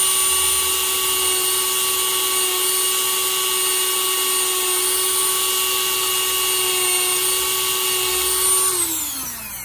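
Dremel rotary tool running at a steady high whine while its bit polishes the inside of a silver coin ring. Near the end it is switched off and its pitch falls as the motor spins down.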